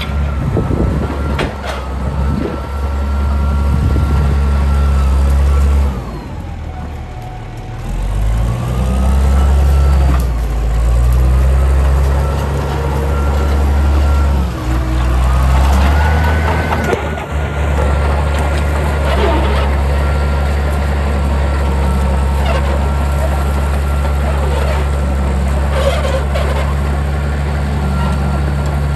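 A motor vehicle's engine running with a steady low hum. About six seconds in its pitch and level drop briefly, then pick back up around eight seconds, and it runs evenly again from about eighteen seconds on.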